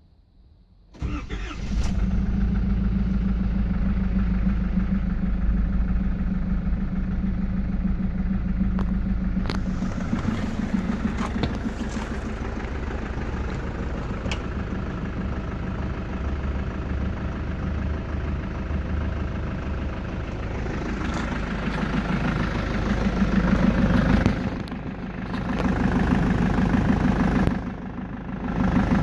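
Engine cold-started after standing overnight: it catches about a second in and runs steadily, then is revved up twice near the end. Its running carries a knock that the owner wonders may be valve tapping.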